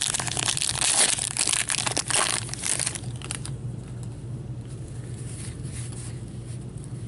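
A 2015-16 Upper Deck Champs hockey card pack's wrapper crinkling and crackling loudly for about three seconds as the pack is opened. After that come softer rustling and faint clicks as the cards are handled.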